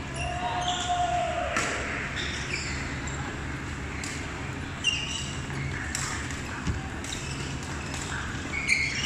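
Badminton rally: sharp racket strikes on the shuttlecock at irregular intervals, with brief shoe squeaks on the court floor. Behind them is the steady chatter of many people in a large hall.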